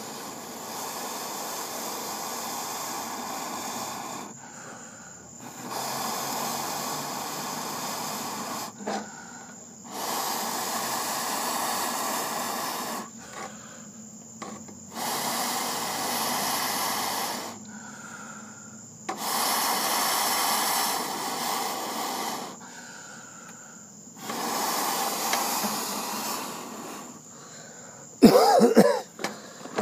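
Someone blowing long, hard breaths onto glowing charcoal embers to fan them alight: about six blows of roughly three seconds each, with short breaths in between. A loud burst of noise comes near the end.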